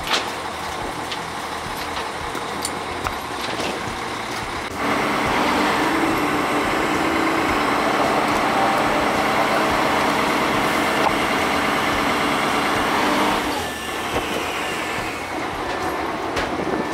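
Heavy machinery runs at a steady drone with a low hum. It starts abruptly about five seconds in, holds for about eight seconds and then drops away, over a lower, steady machine rumble.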